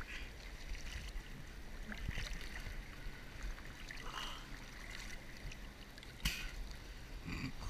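Small waves lapping and splashing against a camera held at the water's surface, with a sharper splash about six seconds in.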